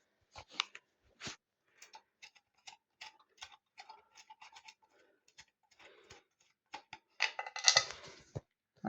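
Irregular light clicks and taps of small hard parts being handled, with a louder scraping rustle about seven seconds in.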